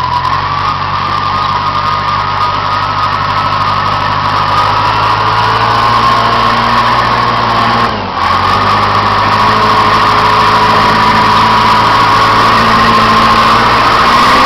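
Case 350B crawler dozer's engine running steadily, with a high whine over the engine note. The sound dips briefly about eight seconds in, then carries on.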